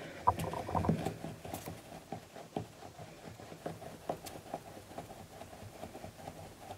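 Hand rolling a coil of air-drying clay back and forth on a wooden board: soft rubbing with irregular light taps and knocks.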